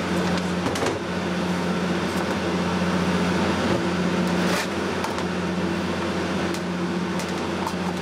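Steady low electrical hum with a haze of hiss, broken by a few light clicks.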